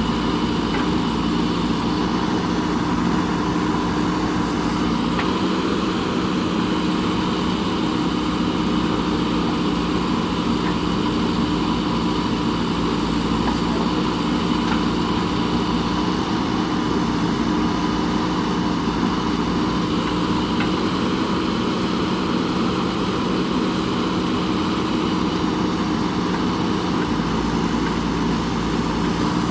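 JCB backhoe loader's diesel engine running at a steady speed.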